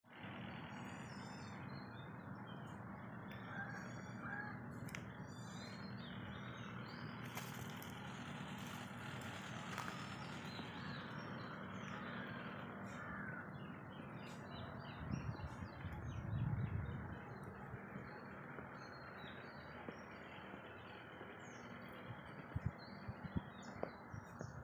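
Outdoor garden ambience: birds chirping and calling in short repeated series over a steady background hiss. A low rumble swells a little past halfway, and a few soft taps come near the end.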